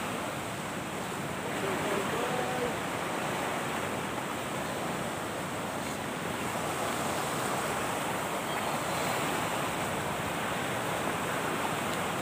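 Steady rushing wash of surf on a sandy shore, mixed with some wind.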